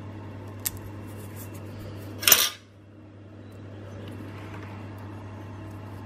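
Small hard plastic and metal parts being handled: a sharp click about half a second in, then a short clatter a couple of seconds in, as connectors are fitted onto a 3D-printed plastic template with metal locating pins. A steady low hum underneath.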